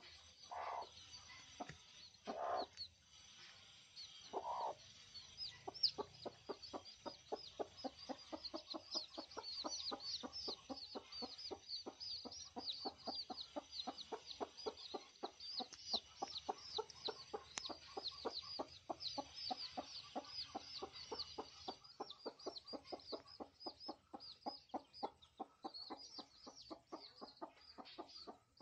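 Mother hen clucking rapidly and evenly, several short clucks a second, while her chicks peep over it in thin, high, falling chirps. In the first few seconds the hen gives three longer, lower calls before the steady clucking sets in.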